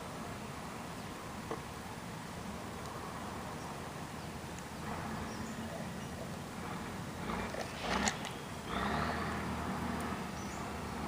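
Honeybees buzzing around an opened hive as frames are moved in, a steady low hum that swells about halfway through. A brief louder scrape or rustle comes about eight seconds in.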